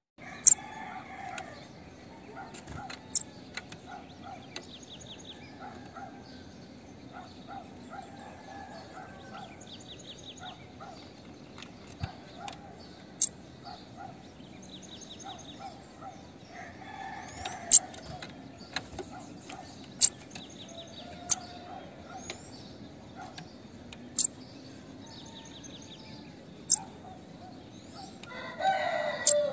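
Female bananaquit calling: sharp, very short high chips at irregular intervals every few seconds, with fast buzzy trills between them. A louder, lower bird call comes near the end.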